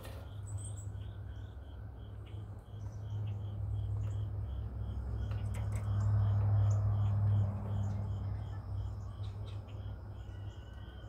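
Crickets chirping in a steady rhythm, about three high-pitched pulses a second, over a low hum that swells around the middle and then eases off.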